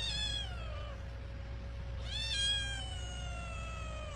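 Kitten giving two long, high meows that fall in pitch, a shorter one at the start and a longer one from about halfway in, yowling in protest at being wiped clean.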